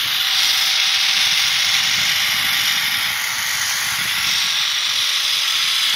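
Zipline trolley running along the steel cable during a ride: a steady high hiss with a faint steady whine underneath.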